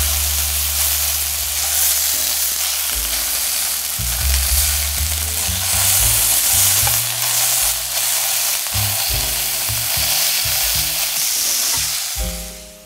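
Pork meatballs sizzling as they brown in hot oil in a small pan. The sizzle drops away near the end as the pan comes off the burner.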